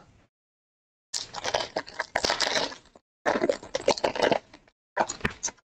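Silver foil pack of Topps Chrome Cosmic trading cards crinkling and being torn open by hand, in three bursts of crackling with short gaps between.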